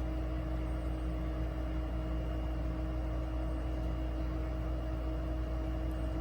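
Steady electrical hum with a few constant tones over a low drone, unchanging throughout.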